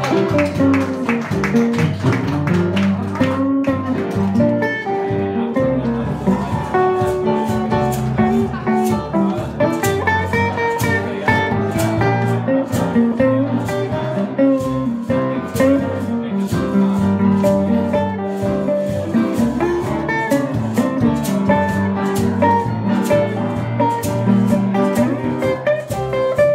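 Electric archtop jazz guitar playing a swing tune alone, plucked notes and chords in a steady rhythm.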